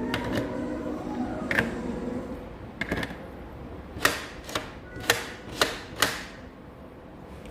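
A series of sharp clicks or taps: a few spaced out, then five in quick succession, each with a short ringing tail. Faint background music fades out early on.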